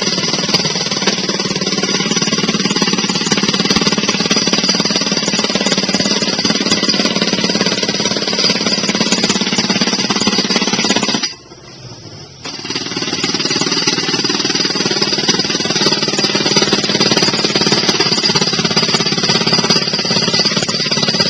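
Power hammer driving an iron well pipe into the ground: a loud, steady, rapid hammering that stops for about a second near the middle and then starts again.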